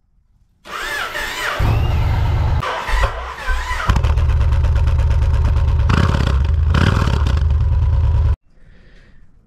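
2006 Yamaha Stratoliner's big air-cooled V-twin starting up about a second in, then running steadily. The sound cuts off abruptly near the end.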